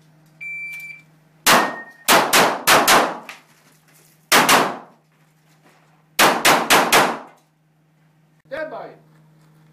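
An IPSC shot timer gives its start beep, then a pistol fires about a dozen shots in three quick strings as the shooter runs the stage, each shot echoing in the enclosed range. A shorter, quieter sound follows near the end.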